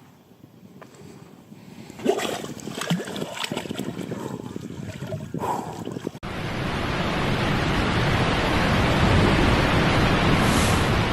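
Waterfall water rushing, a loud steady noise that starts abruptly about six seconds in. Before it, faint scattered knocks and rustles.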